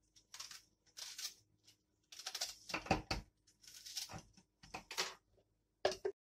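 Peeled onion and garlic cloves dropped and pushed into the plastic bowl of a mini food chopper, with scattered rustles and knocks and a dull thud about three seconds in. The chopper's motor lid is set on near the end; the motor is not running.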